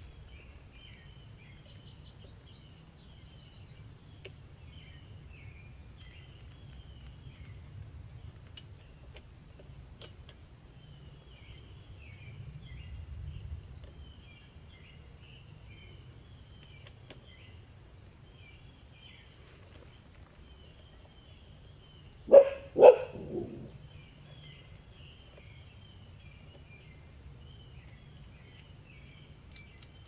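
A dog barks twice in quick succession, with a fainter third bark just after, about three-quarters of the way in; these are the loudest sounds. Underneath runs a steady high chirping, with a few faint clicks.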